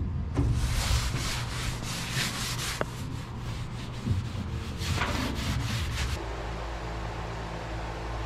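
Cloth rag rubbed quickly back and forth over a bare aluminum boat hull, wiping it down with lacquer thinner before coating: a rapid series of rough wiping strokes. The rubbing stops about six seconds in, leaving a low steady hum.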